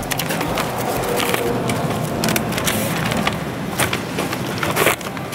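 Paper wrapping on a package rustling and crinkling as it is tied with ribbon, with many small clicks and one louder snap near the end, over a steady busy-shop background noise.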